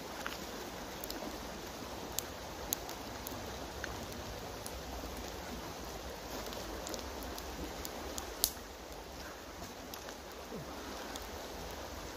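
Steady rush of a shallow river running over stones, with a few scattered sharp clicks, the loudest about eight and a half seconds in.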